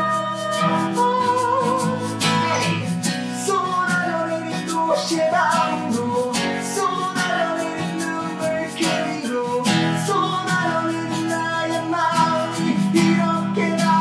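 Two acoustic guitars strummed with male singing and a hand shaker keeping time: a live acoustic band playing a song.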